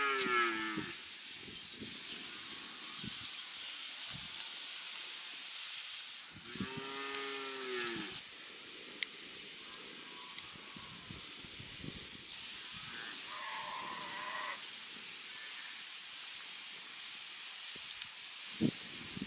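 Cattle mooing: a short call right at the start and a longer, drawn-out moo about seven seconds in, over a steady hiss.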